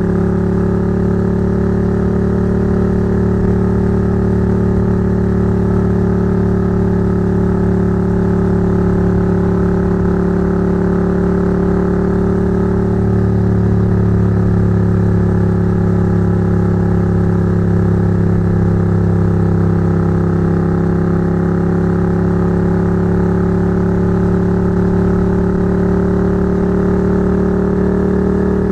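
Ducati GT1000's air-cooled L-twin engine running through Termignoni exhausts at a steady cruise, heard from just above the pipes. The engine note holds nearly constant, dips a little about two-thirds of the way through, then rises gently near the end.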